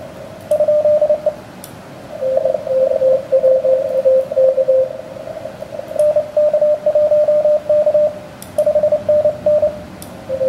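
Morse code from an amateur radio transceiver in CW mode on the 17-metre band: groups of keyed tone at two slightly different pitches over a steady hiss of band noise. The higher-pitched keying about six seconds in is the operator's own transmission heard as sidetone; the other keying is stations being received.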